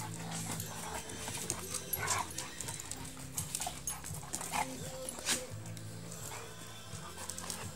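Dogs giving a few short vocal sounds over steady background music, the loudest about five seconds in.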